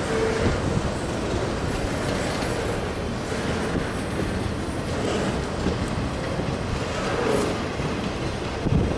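Freight train cars rolling past with a steady rumble of wheels on rail, irregular clatter over the joints and brief faint wheel squeals.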